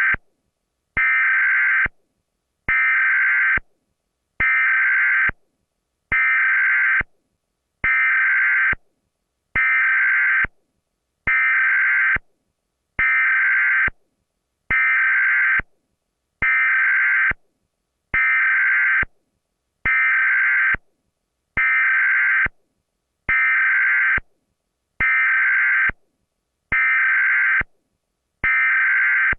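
Emergency Alert System alarm tones repeating over and over: bursts of about one second, each opening with a click, come roughly once every 1.7 seconds with short silent gaps between them.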